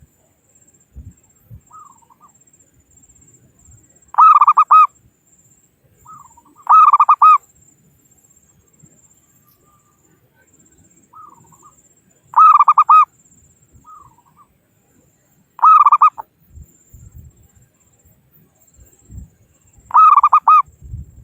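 Zebra dove (perkutut) cooing: five loud calls, each a quick run of a few rolling coos, spaced a few seconds apart, with softer short notes in between.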